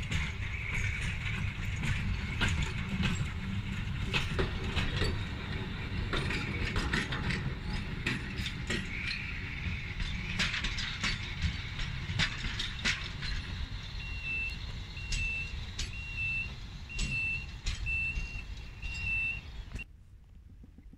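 Level-crossing warning signal beeping, a short high beep a little more than once a second, over a low rumble scattered with irregular sharp clicks and clanks. The sound drops away abruptly near the end.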